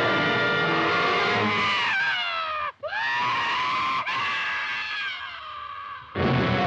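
Film monster roar sound effect: a long, high cry that slides down in pitch and breaks off near the middle, then a second cry that bends down and trails away more quietly.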